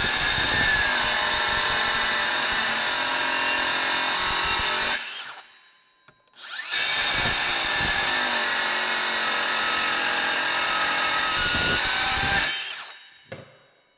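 Makita 18V brushless metal-cutting circular saw (XSC04Z) running and cutting steel with a carbide blade. Two cuts of about five seconds each, with a short pause between, and the blade stops quickly about a second from the end.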